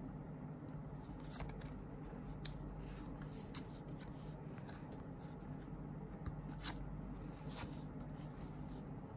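Photo cards being handled and slid against one another: a scatter of short papery rustles and clicks over a steady low hum.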